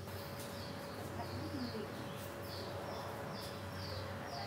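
A small bird chirping over and over: short, high, falling chirps, about two a second, over a faint steady hum.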